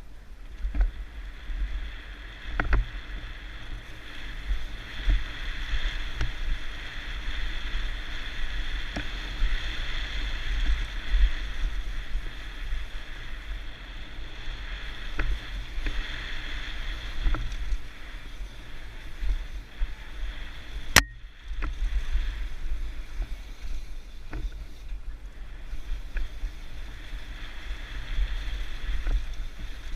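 Mountain bike riding down a bike-park trail: wind rushing over the microphone and tyres rolling on dirt, with scattered knocks as the bike clatters over bumps and one sharp click about two-thirds of the way through.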